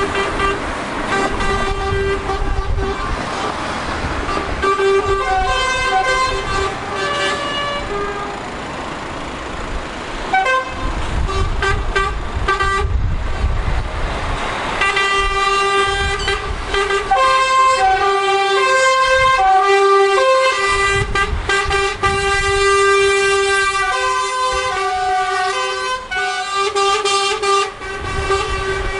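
Lorry air horns blowing again and again, several notes sounding together and stepping between pitches, loudest in the second half. Beneath them runs the low rumble of truck engines and passing traffic.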